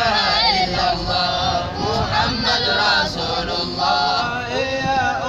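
Men's voices chanting a Sufi dhikr in Arabic, sung in unbroken melodic lines with drawn-out, wavering notes.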